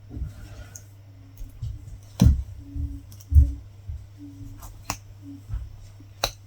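Latch hook tool working yarn through rug canvas: a few irregular sharp clicks and soft knocks, over a steady low hum.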